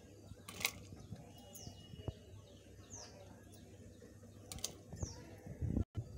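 A bird repeating a short high chirp that slides down in pitch, about every second and a half, over low background noise. A brief sharp clatter comes about half a second in, and there are a few low knocks near the end.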